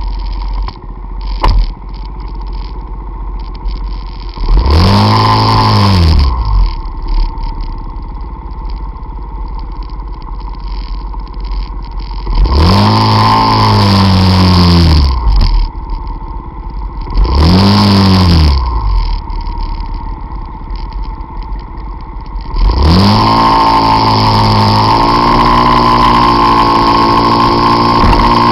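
Peugeot Jetforce Compressor scooter's supercharged 125 cc two-stroke engine idling and being blipped three times, the revs rising and falling each time. Near the end it pulls away, the revs climbing and then holding steady as it rides off.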